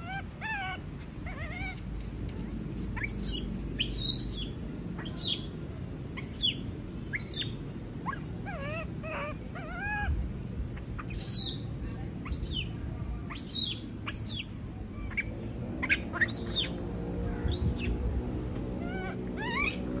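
A baby macaque screaming over and over, short sharp high cries at irregular intervals with a few lower wavering calls among them: the distress calls of a young monkey left alone in its cage.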